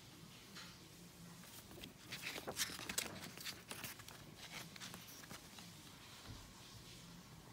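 Paper pages of a CD booklet being turned and handled: a cluster of soft rustles and light taps about two to four seconds in, with fainter ones afterwards.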